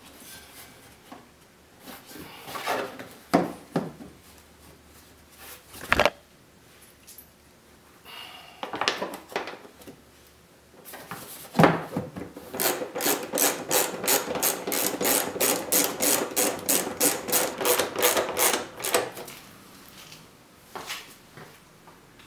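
Knocks and rubbing of the plastic CVT cover on a Can-Am Outlander 500 as it is seated against its gasket. Then about six seconds of even clicking, about four a second, as a case bolt is run in by hand with a ratchet.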